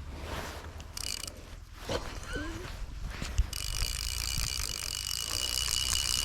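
Fly reel's ratchet clicking in a fast continuous buzz from about three and a half seconds in, after a brief burst about a second in, over low wind rumble.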